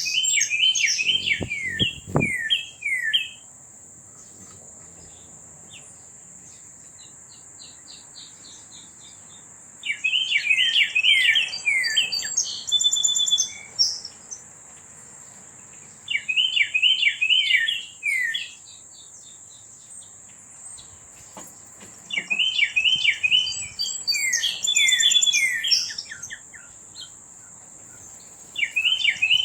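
Songbird singing outdoors: short bouts of quick, descending chirped notes, repeated about every six seconds. A steady high-pitched hiss runs underneath the song.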